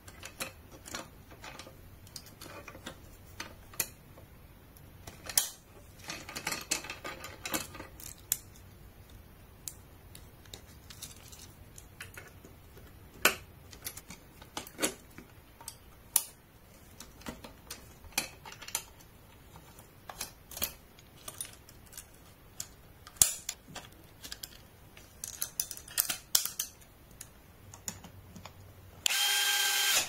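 Irregular clicks and taps of tools and parts being handled during bicycle work. About a second before the end, a loud steady whine starts, like a small power tool running.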